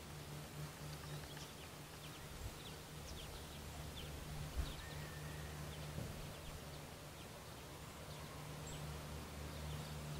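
Faint outdoor ambience: a low steady hum with scattered short, high chirps from small birds.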